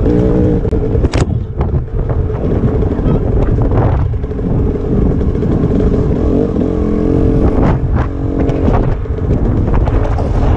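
Dirt bike engine running under changing throttle as it is ridden along a desert trail, with wind buffeting the helmet-mounted microphone and a few sharp knocks.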